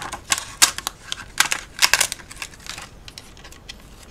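Card stock rustling and crackling in short bursts as a thin metal cutting die is lifted off a freshly die-cut sheet, with small clicks from the paper and the die.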